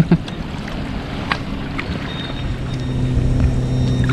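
River water sloshing as hands dig through muck on the riverbed beside a metal-detecting pinpointer, with a sharp knock right at the start. A faint thin high tone comes and goes, and a low steady hum comes in about halfway through and grows louder.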